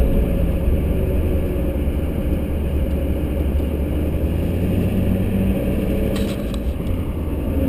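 Full-size 3/4-ton pickup truck driving up a steep mountain road, heard from inside the cab: a steady low engine hum and road rumble.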